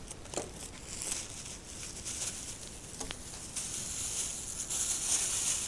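Bubble wrap crinkling and rustling as it is unwrapped by hand, getting louder in the second half, with a single sharp click about three seconds in.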